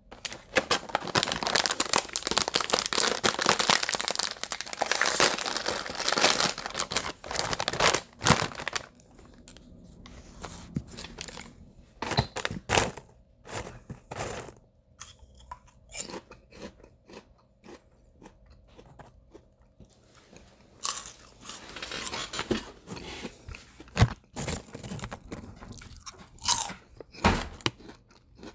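A person biting and chewing potato chips. Dense, loud crunching for the first eight seconds or so gives way to quieter chewing with single sharp snaps, and a second stretch of crunching comes about twenty seconds in.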